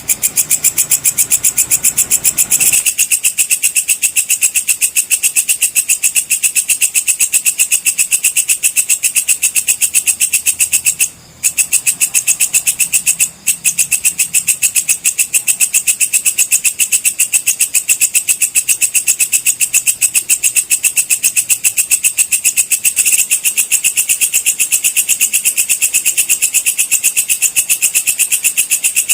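Walang kecek (a katydid) singing a loud, rapid, evenly pulsing high-pitched trill, with two brief pauses about 11 and 13 seconds in.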